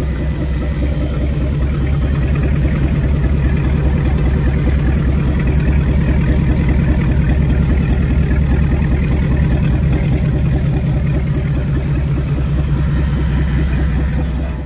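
Volvo Penta 8.1-litre V8 marine engine running steadily on a test stand during its test run after a complete overhaul.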